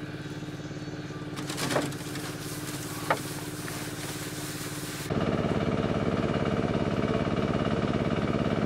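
An engine running steadily, with a couple of short sharp knocks in the first half. It gets suddenly louder about five seconds in and runs on at that level.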